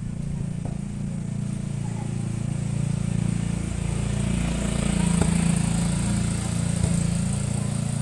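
Motorcycle engine running steadily, growing louder toward the middle.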